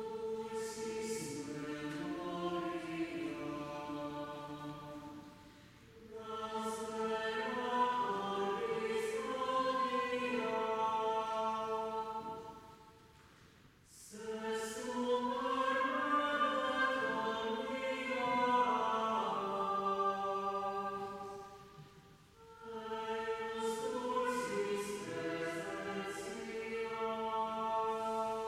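Small chamber choir singing a cappella in harmony, in four phrases separated by short breath pauses.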